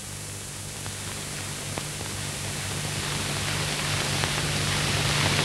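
Steady hiss with a low hum underneath, growing gradually louder.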